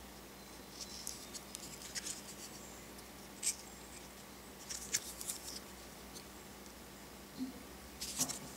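Fingers handling and turning over a cardboard coin holder: faint scratches, rustles and ticks of the card against the fingertips, in a few scattered clusters.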